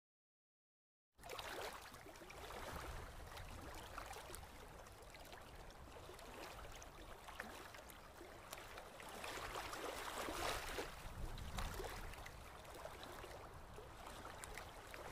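Small sea waves washing onto a sandy beach, a steady fairly faint wash with slow swells, starting about a second in and cutting off abruptly at the end.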